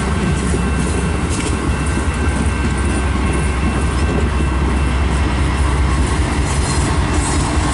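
Amtrak passenger coaches rolling past at close range: a steady heavy rumble of wheels on rails.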